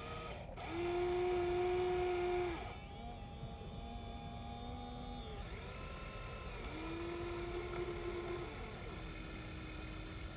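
Electric motors of a Huina 1593 RC excavator whining in several short runs as the boom, arm and bucket move. Each run holds one pitch, gliding up as it starts and down as it stops. The loudest run is about a second in and lasts about two seconds.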